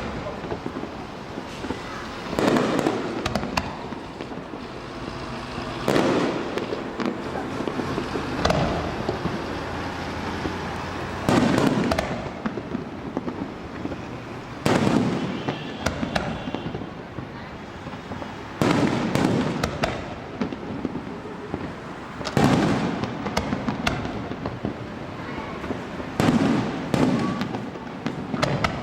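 Aerial fireworks shells bursting overhead: about eight loud booms, one every three to four seconds, each trailing off in a rumbling echo.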